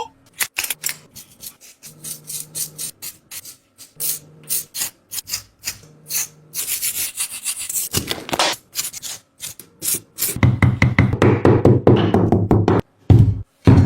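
Hands rubbing and handling items from a squishy mystery kit, giving a run of quick crackly clicks. The rubbing grows denser and louder from about ten seconds in.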